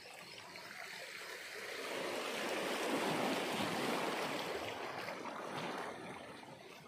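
Small sea waves washing over a shallow coral reef flat and rocky shore: a rush of water that swells to a peak a few seconds in and then fades.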